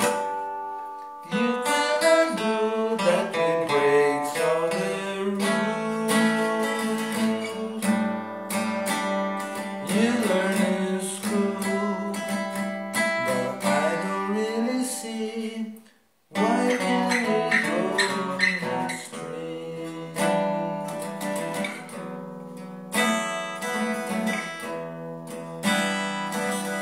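Sunburst steel-string acoustic guitar playing chords of a song's instrumental passage. The sound cuts out for a split second about halfway through.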